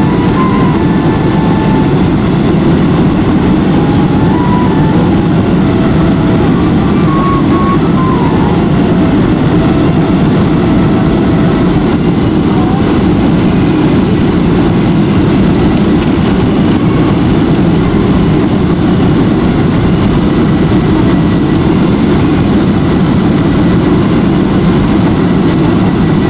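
Steady cabin drone inside a Boeing 737-400 on approach with flaps extended: the noise of its CFM56-3 engines and the airstream over the fuselage, heard at a window seat over the wing.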